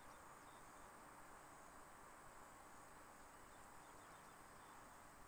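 Near silence: a faint steady background hiss with a thin, high, steady whine over it.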